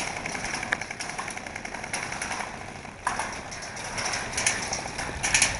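Airsoft guns firing in rapid clicking bursts, with a few sharper, louder cracks near the end.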